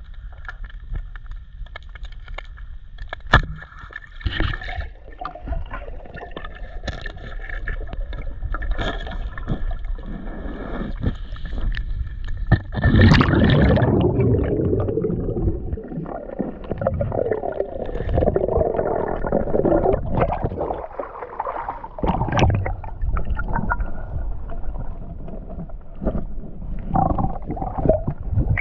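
Underwater sound as heard through a camera housing: muffled gurgling water with scattered sharp clicks. A sharp snap comes about 13 seconds in, followed by several seconds of loud churning bubbles as a speared pufferfish struggles on the spear shaft.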